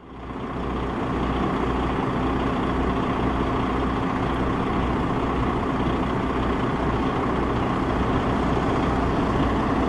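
DAF XF105.460 truck's straight-six diesel engine idling steadily, a low even hum that comes in over the first second.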